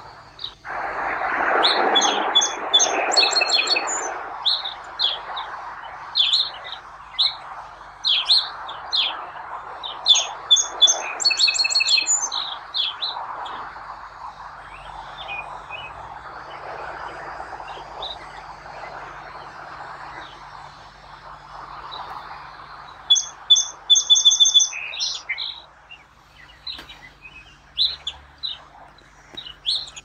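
Song sparrow singing: phrases of sharp high notes and rapid trills that recur every several seconds, over a steady rushing background.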